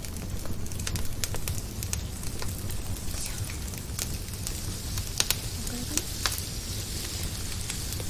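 Kabocha squash slices sizzling in a ridged grill pan over a wood fire, with irregular sharp crackles and pops and a steady low rumble underneath.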